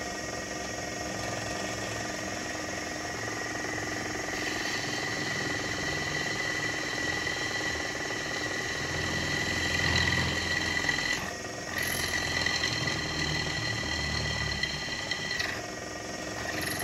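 Drill press running, its twist bit cutting a rivet hole through a steel tong blank: a steady motor whine with rough cutting noise. The sound dips briefly twice, once just past the middle and again near the end.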